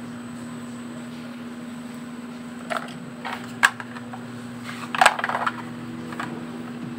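Small hard makeup items clicking and rattling against a plastic basket organizer as they are handled and dropped in. The sounds come as a few short clatters in the middle, with one sharp click standing out, over a steady hum.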